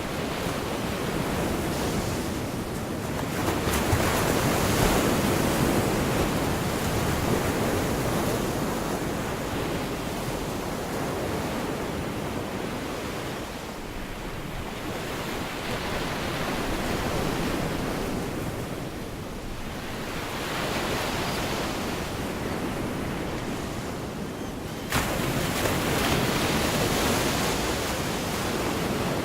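Surf breaking on a beach, the wash swelling and receding every few seconds, with a sudden louder break about 25 seconds in.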